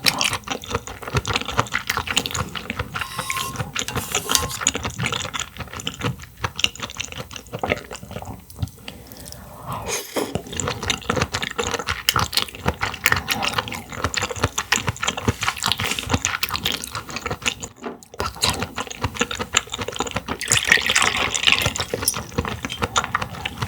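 Close-miked wet eating sounds of Hangdal clams and clam broth: chewing, slurping and wet smacking, full of small irregular clicks.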